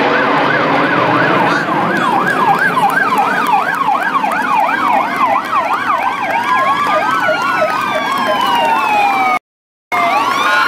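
Fire engine sirens sounding together. A fast up-and-down yelp goes about twice a second, and slower rising and falling wails join it in the second half. The sound cuts out for about half a second near the end.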